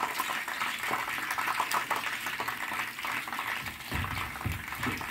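Hot oil sizzling and crackling in a frying pan around a battered piece of naan pakora as it fries. There are a few low, muffled handling sounds near the end.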